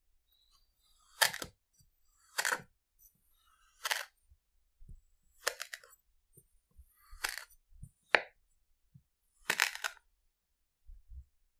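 A plastic toy knife slicing down through kinetic sand onto the board beneath: seven short strokes, about one every second and a half, quiet between them.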